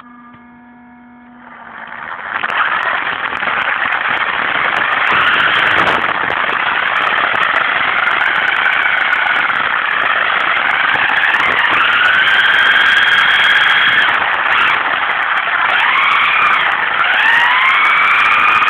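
Onboard sound of a 1:10 brushless electric RC car driving: a steady hum at standstill, then the motor winds up and its whine rises and falls with speed over dense tyre and drivetrain noise, with scattered clicks and rattles.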